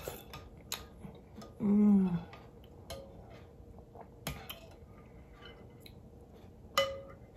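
Metal spoon clinking and scraping against a glass bowl as it scoops a thick papaya and coconut pudding, with several sharp clinks; the last, near the end, rings briefly. About two seconds in there is a short hummed "mmm" of enjoyment.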